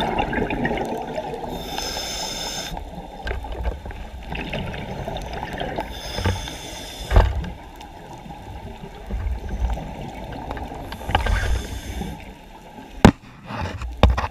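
Muffled water sounds, with a short hiss coming three times a few seconds apart and a few sharp clicks near the end.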